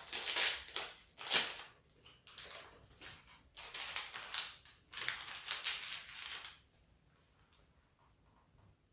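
Thin plastic wrapping crinkling and crackling as it is pulled off a small rice cake by hand, in a run of sharp rustles that stops about two-thirds of the way through.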